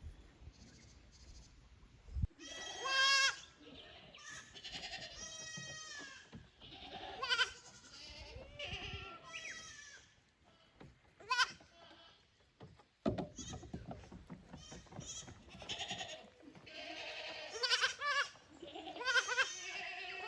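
Young goats bleating over and over: a string of separate calls, about half a second to a second each, many with a quavering pitch.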